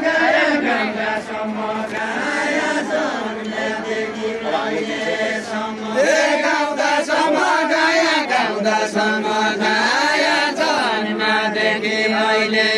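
Deuda, the Far-Western Nepali folk song, sung by several voices in long, drawn-out chanted lines with a wavering pitch. A new, louder line starts about six seconds in.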